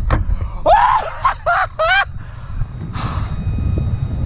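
A man's excited high-pitched cries: several short rising-and-falling yelps about a second in, then a short breathy sound near the three-second mark, over a steady low rumble.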